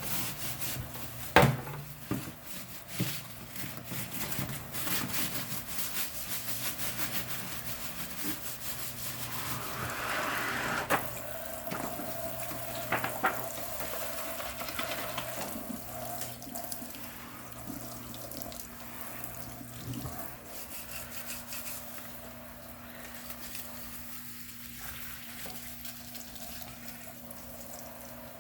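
Water running from a tap into a sink while a circuit board is scrubbed, with scattered clicks and a sharp knock about a second and a half in.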